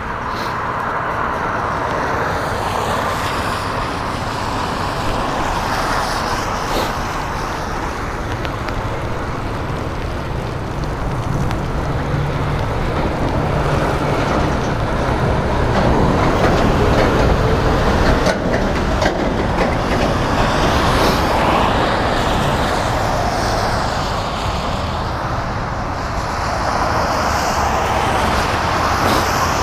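Steady rush of wind and wet-road noise from a bicycle ride in the rain, with motor traffic passing on the wet road.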